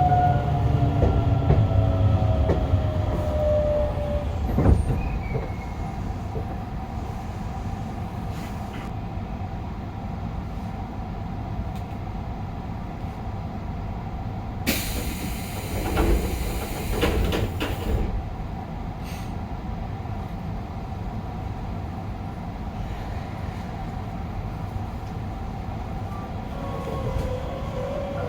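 Interior running sound of a Hokuso 7300-series electric train with GTO-VVVF traction. The inverter's falling whine fades out early as power is shut off, and the car coasts with a steady low rumble from wheels and track. About halfway through there is a hiss of roughly three seconds, and the inverter tones start again near the end.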